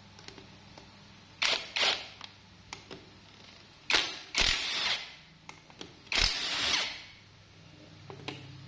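Impact wrench spinning out crankcase bolts in a string of short bursts, two close together about a second and a half in, then three more between about four and seven seconds in, with small clicks of the tool and bolts in between.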